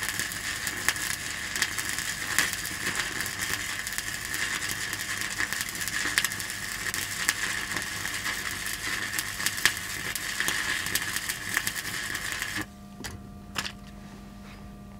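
Electric arc welding on the steel plate of a loader bucket: a steady crackle with frequent sharp pops, which cuts off suddenly about two seconds before the end. A couple of clicks and a steady low hum follow.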